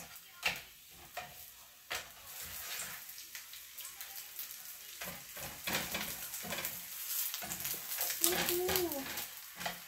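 Corn tortillas frying in hot pork lard in a frying pan, sizzling and crackling steadily. Metal tongs click and scrape against the pan as the tortillas are turned and lifted.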